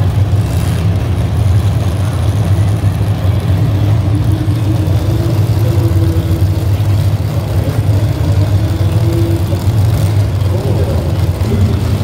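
Engines of a row of demolition derby cars idling together: a loud, steady low rumble.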